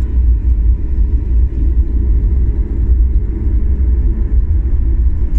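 Steady low rumble inside a moving vehicle's cabin, with a faint constant hum above it.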